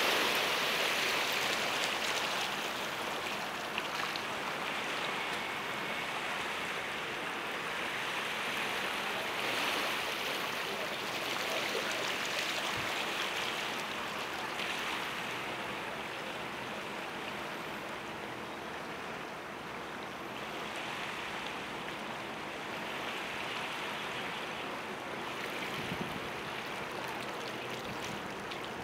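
Steady rushing, water-like noise with a faint low hum from a high-speed catamaran ferry manoeuvring slowly to berth, heard from across the harbour. The noise eases a little as it goes on.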